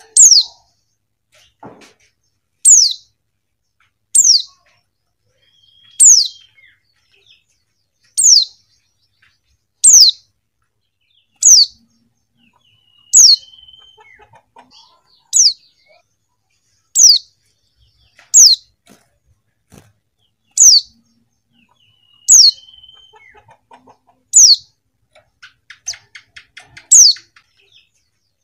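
Female white-eye (pleci) calling: a single short, high note that slides sharply downward, repeated about every one and a half to two seconds, some fifteen times.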